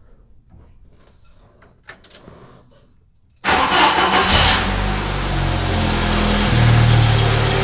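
Jeep Wrangler engine cranks and catches suddenly about three and a half seconds in, then runs and settles toward a steady idle. A vacuum leak at a hose fitting has just been sealed with heat shrink, and the idle sounds a lot better.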